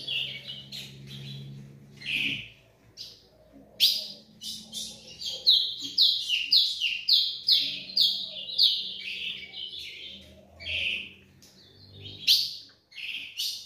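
Female ultramarine grosbeak (azulão) calling: a run of short, high chirps, many falling in pitch, about two a second with pauses between runs. She is a hen in breeding condition, calling for a mate.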